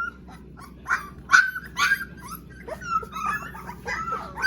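Young puppies whimpering and yelping: many short, high-pitched cries, some sliding in pitch, overlapping in quick succession.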